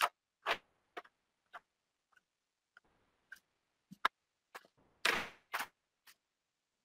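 Faint, sharp clicks coming about two a second, with a short breathy rush about five seconds in.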